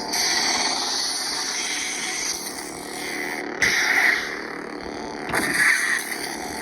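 Lightsaber sound-font effects played from a Proffie saber board: a steady electronic hum broken by two sudden louder hits, about three and a half and five and a half seconds in.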